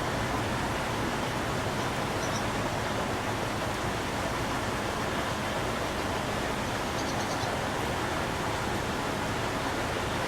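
Steady rushing background noise, with a few faint, short, high bird chirps about two seconds in and again around seven seconds in.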